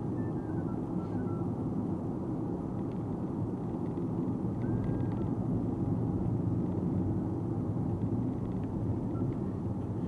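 Steady road and tyre noise inside the cabin of a moving Nissan Note e-POWER, a low, even rumble that swells slightly around the middle.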